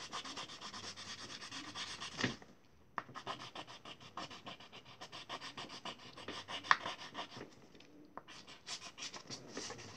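Pen scribbling on paper in rapid back-and-forth scratchy strokes, pausing briefly about two seconds in and again near eight seconds.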